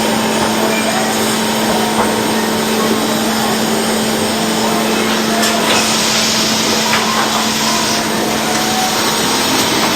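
Sawmill running steadily, a continuous loud machine noise with a steady hum, and a brighter hiss from about six to eight seconds in.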